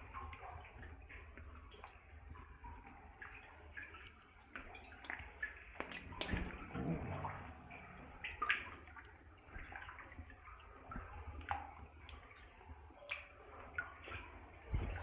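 Wading through thigh-deep water in a flooded mine adit: water sloshing and splashing around the legs in an irregular run of strokes, with scattered drips.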